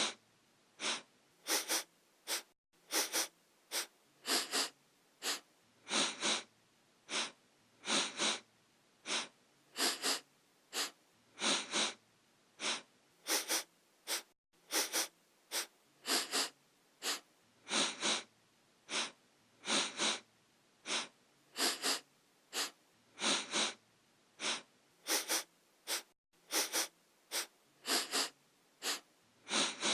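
A person sniffing through the nose: short, sharp sniffs, often two or three in quick succession, repeating steadily about one to two a second.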